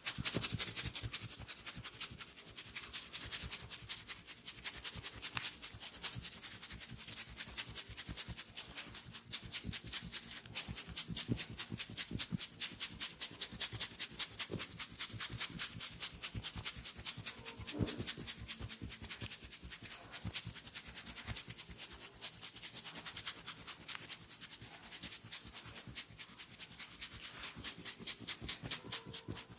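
Hands rubbing and striking briskly over a person's hair and scalp during an Indian head massage, in a rapid, even rhythm of several strokes a second.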